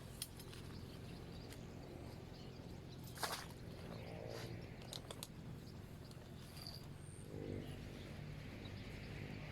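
Quiet outdoor background with scattered small clicks, a sharp tick about three seconds in, and a couple of faint short calls.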